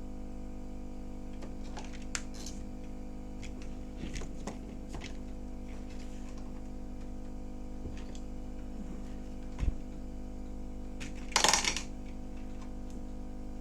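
Steady hum of a hot-air rework station blowing on the board as it heats the HDMI port's solder, with scattered light clicks and taps of tools on the board. There is a sharper knock about ten seconds in and a short scraping rustle near the end, which is the loudest sound.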